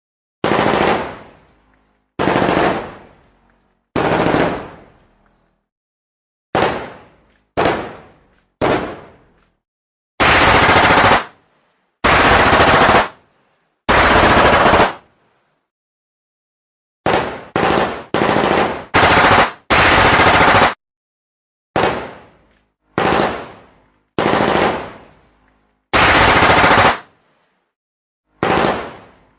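Gunfire sound effects: single shots, each with a short fading echo, a second or two apart, alternating with bursts of automatic fire about a second long, separated by brief silences.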